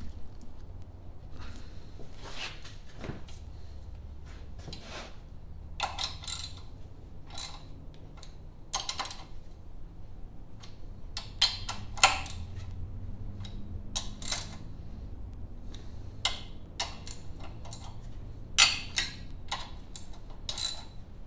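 Socket ratchet and extension working the cylinder head bolts of an Ingersoll garden tractor's twin-cylinder engine: irregular ratchet clicks and metal clinks, singly and in short runs, loudest about twelve seconds in and again near nineteen seconds.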